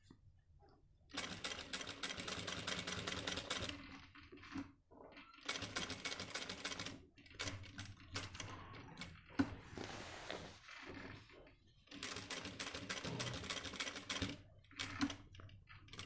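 Jack industrial sewing machine stitching in stop-start runs: about a second in, it starts a fast, even run of needle strokes lasting a few seconds, then goes on in shorter spurts with pauses, with two more long runs midway and near the end.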